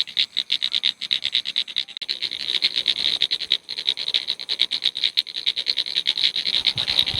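Night frog chorus from the rice paddies: a fast, steady train of pulsed croaks.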